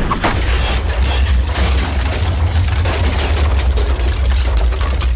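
Volcanic eruption: a loud, deep continuous rumble with dense crackling and popping over it.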